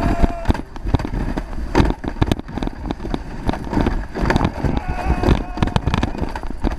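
Plastic toboggan sled running down a concrete alpine-slide track, rattling and clattering with many irregular knocks over a constant low rumble. A pitched, voice-like tone sounds briefly about four and a half seconds in.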